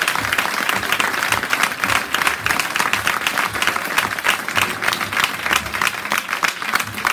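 Audience applauding, a dense run of many hands clapping.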